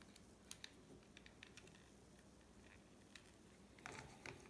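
Faint scattered clicks and taps of LEGO plastic pieces being handled and pressed together as a motion sensor assembly is fitted onto the model, with a few sharper clicks near the end.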